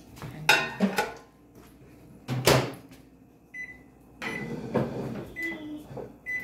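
Microwave oven being loaded and set going to reheat rice: a few clicks and knocks, a loud clunk of the door shutting about two and a half seconds in, then several short high beeps from its keypad.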